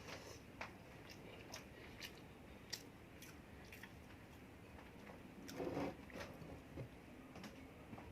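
Faint close-miked chewing and mouth sounds of a person eating, a series of small, sharp wet clicks, with one louder bite about five and a half seconds in.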